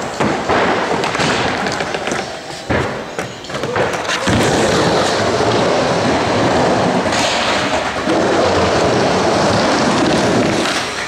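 Skateboard wheels rolling on the wooden transitions of a skate bowl, a steady rolling roar, with a few sharp knocks of the board against the wood in the first four seconds.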